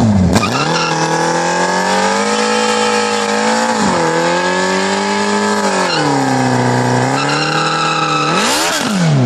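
Suzuki Hayabusa's inline-four engine held at high revs during a burnout, with the rear tyre spinning against the road. The revs sag and recover a couple of times, then sweep sharply up and fall away near the end.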